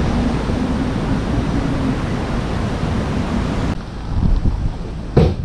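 Wind rushing over the camera microphone outdoors, a steady, fairly loud noise. The noise changes at a cut a little under four seconds in, and there is a short bump near the end.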